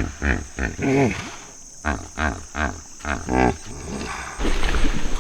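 Hippopotamus calling with its wheeze-honk: a rhythmic run of deep honking grunts, about three a second, in two bouts that end about three and a half seconds in. A noisy rush follows near the end.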